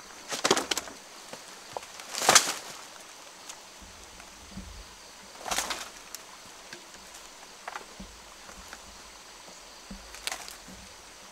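Dry leaf thatch rustling and crackling as a thatch panel on a bamboo frame is handled: a few short bursts, the loudest about two seconds in, with small ticks and snaps between them.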